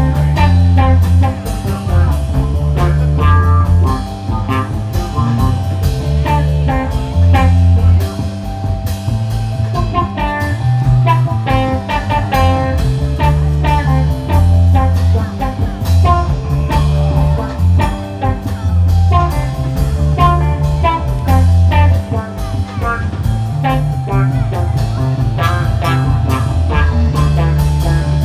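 Blues-rock music with electric guitar, bass and drums, at a steady beat.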